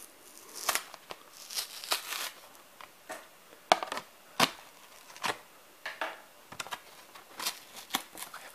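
Hard plastic blister pack being pried and peeled away from its cardboard backing card, crackling and crinkling in irregular sharp snaps.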